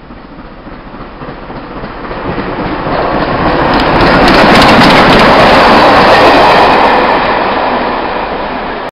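LMS Black Five 4-6-0 steam locomotive and its coaches passing on the rails. The sound grows louder to a peak from about four to seven seconds in, with a rapid run of clicks from the wheels, then begins to fade before it cuts off at the end.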